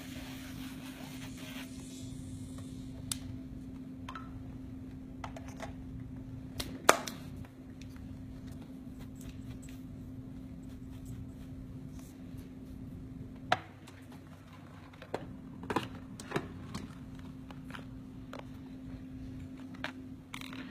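Electric nail drill buffing a fingernail, the grinding hiss stopping about two seconds in. After that a steady low hum goes on, with scattered light clicks and knocks of handling; the loudest knock comes about seven seconds in.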